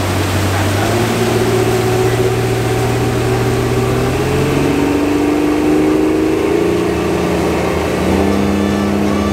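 Suzuki outboard motor running at speed under a boat, with the rush of wind and wake spray. Its pitch shifts a few times.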